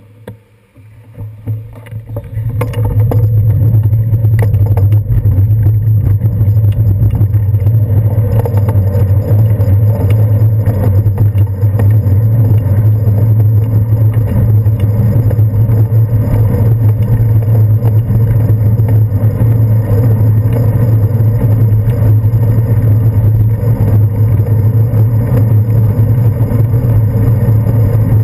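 Steady, loud low rumble of wind and road vibration on a handlebar-mounted GoPro Hero 2 as the bicycle rides along a city street, with motor traffic mixed in. It comes up about two and a half seconds in and then holds level.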